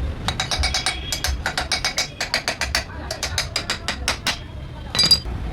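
Ratchet wrench clicking in a quick run of strokes as it is worked, followed by one louder metal clank near the end.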